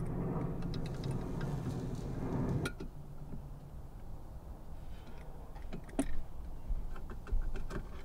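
Adjustable wrench clicking and scraping on the collar nut of a Console Vault Elite Series lock as the nut is tightened: a few sharp metal clicks, the loudest a little under three seconds in and another about six seconds in. A steady low hum underneath stops a little under three seconds in.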